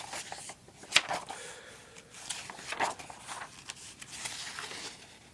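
Paper pages of a manual being turned and handled, with crisp page flaps and rustling. The sharpest snap comes about a second in.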